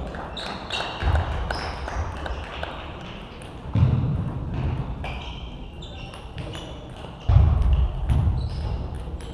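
Table tennis balls ticking off bats and tables around a sports hall in irregular sharp clicks, with three dull thumps: about a second in, near four seconds and near seven seconds.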